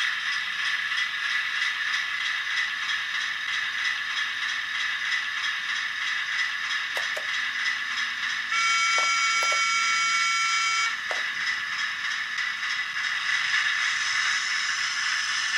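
Hornby OO gauge Class 08 model shunting locomotive running slowly on the track, its motor and gears whirring steadily with a fine rhythmic clatter. About eight and a half seconds in, a horn sounds for a couple of seconds and cuts off, and a few light clicks come around it.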